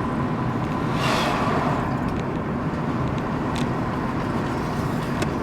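Car interior noise while driving: steady engine and road rumble with tyre hiss, and a brief rushing swell about a second in.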